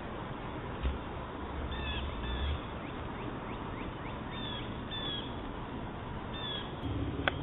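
Small birds chirping in short high notes scattered through, over a faint steady outdoor background, with one sharp click near the end.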